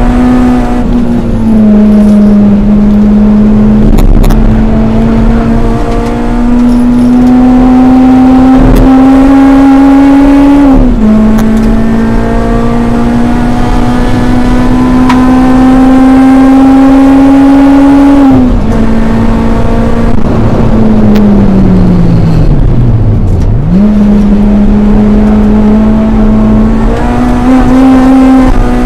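Honda Civic Type R EP3's four-cylinder engine heard from inside the cabin at high revs on track. Its pitch climbs slowly under full throttle, with sharp drops at the upshifts about one and eleven seconds in. Revs then fall steadily for about five seconds off the throttle before jumping back up and climbing again near the end.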